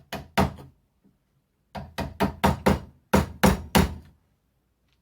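Hammer blows struck in three quick runs of about three, five and three, roughly four blows a second, with short pauses between the runs.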